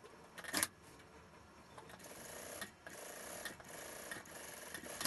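Computerised industrial lockstitch sewing machine stitching wool suit fabric in short runs, stopping and restarting a few times. A brief loud noise comes about half a second in, and another loud burst right at the end.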